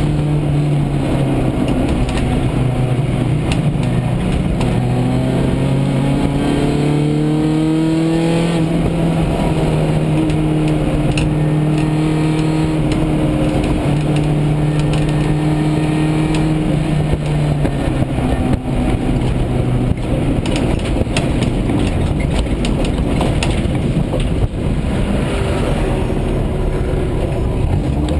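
1990 Honda CRX's D16A6 four-cylinder engine, heard from inside the stripped cabin, revving up and rising in pitch, then holding a steady note under load. Past the middle the engine note fades and a rougher noise with scattered sharp knocks takes over, and near the end the revs climb again.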